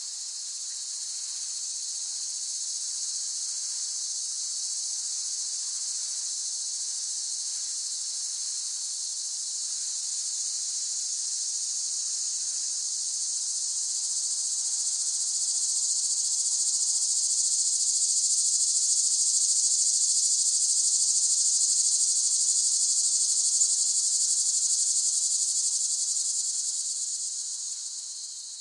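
Cicadas buzzing in a steady, shrill, high-pitched drone. The drone swells louder through the middle and then fades away near the end.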